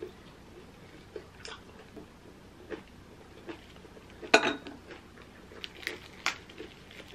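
Wooden chopsticks clicking and scraping against a plate and bowl, and lettuce leaves rustling as a lettuce wrap is folded. Light clicks are scattered throughout, with one louder clatter about four seconds in.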